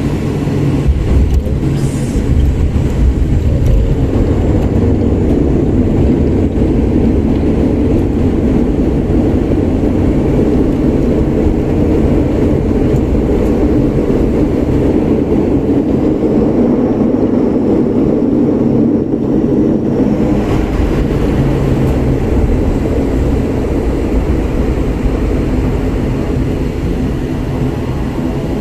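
Steady low rumble of an airliner's engines and airflow heard inside the passenger cabin on the approach to landing; about two-thirds of the way through it takes on more hiss.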